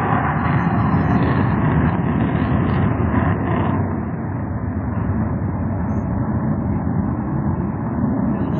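Steady rushing noise of aircraft flying overhead, easing off a little about four seconds in.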